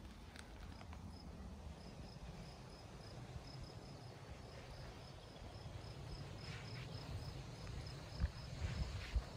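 An insect chirping: short high chirps at one steady pitch, about three a second, starting about a second in. A low rumble runs underneath.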